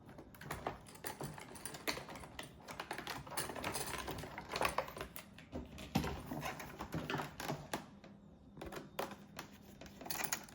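Irregular small clicks and plastic rattles from a Phillips screwdriver and hands working on a Roomba S9's cleaning head module, backing out the single screw that holds the brush latch.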